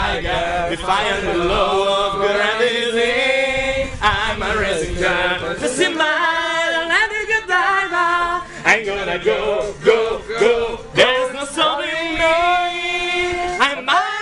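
A group of young men singing loudly together, led by one singing into a handheld karaoke microphone.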